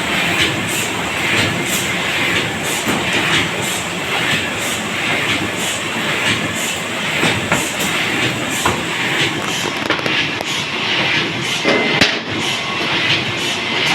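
Dingshung corrugated cardboard flute laminating machine running at production speed, laminating B-flute board: a steady mechanical running noise with repeated clacks as the sheets feed through.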